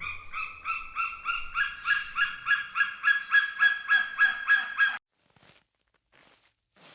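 A goose honking in a fast, even series of calls, about four a second, which stops about five seconds in.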